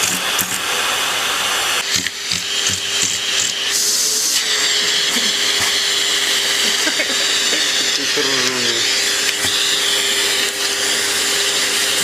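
Vacuum cleaner running steadily: a constant hum over an airy hiss.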